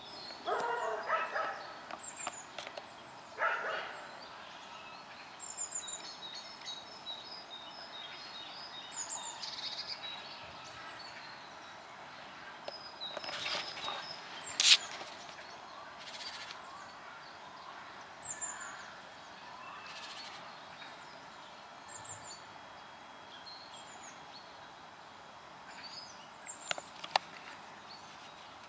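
Small birds chirping and calling on and off, short high notes scattered throughout. Two louder, lower calls come in the first few seconds, and a single sharp click about halfway through is the loudest sound.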